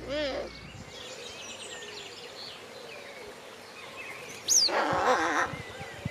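Small birds singing in the background, with a sharp, falling whistle about four and a half seconds in and a short, louder burst of sound just after it.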